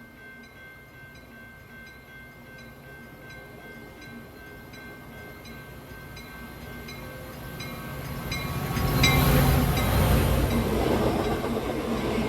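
Passenger train approaching and passing, the noise swelling sharply about two-thirds of the way in and staying loud. Before it arrives, a fast, regular ringing ticks along over a steady high tone.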